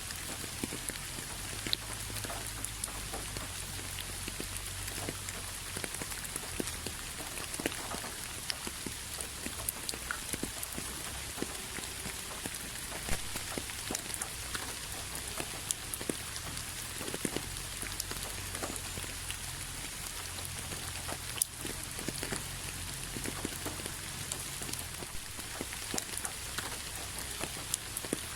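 Steady rain, with many separate drops clicking sharply against an even hiss of rainfall.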